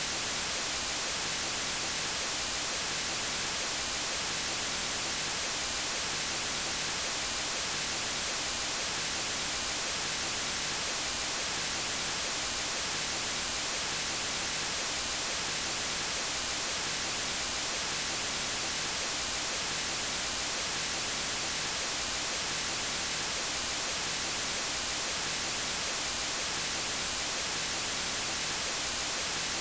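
Steady white noise: a constant, even hiss across all pitches, unchanging throughout.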